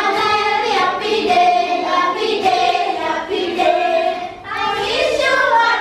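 A group of schoolchildren singing a song together, in long held notes.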